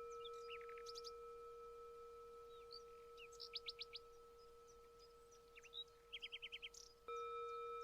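A meditation bell rings with a steady, slowly fading tone and is struck again about seven seconds in. Small birds chirp over it in three short, rapid trills of a few notes each.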